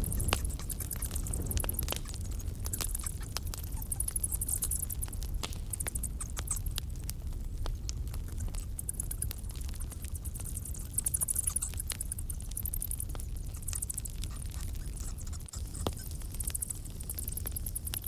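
Campfire crackling, with irregular pops and snaps over a low rumble. A high-pitched trill comes and goes in bursts over it.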